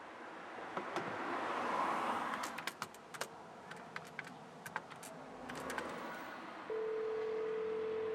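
Buttons on a public telephone's metal keypad clicking irregularly as a number is dialled. Near the end a steady telephone ringing tone starts in the line.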